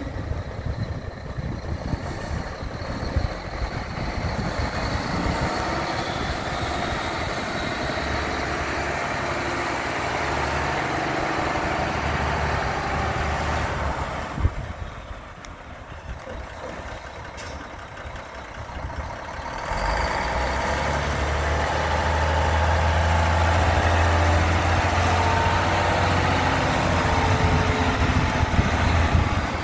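1998 Mack CH613 truck tractor's diesel engine running as the truck drives about, dropping quieter for a few seconds around the middle, then louder and steady from about two-thirds of the way in as it comes up close. A brief sharp sound comes just as it goes quiet.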